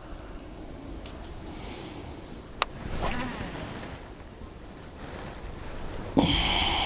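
Wind rumbling on the microphone, with a single sharp click about two and a half seconds in and a crow cawing loudly near the end.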